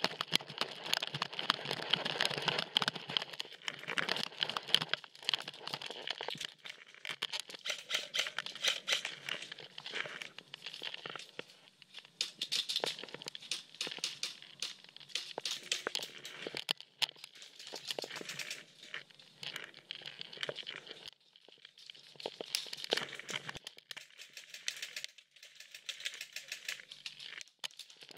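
Irregular crunching and crinkling rustle of a player on the move: footsteps on dry grass and dirt, and gear and clothing brushing close to the head-mounted camera.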